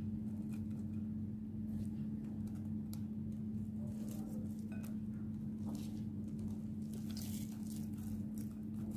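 Sliced tomato and onion dropped by hand into a bowl of chopped bitter gourd, making soft scattered pats and light taps, over a steady low hum.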